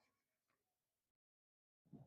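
Near silence: faint room tone with two soft clicks about half a second apart, and a moment of complete dropout just past the middle.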